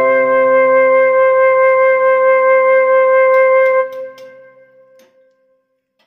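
Background music: one long held wind-instrument note over soft accompaniment, which stops about four seconds in and dies away into silence.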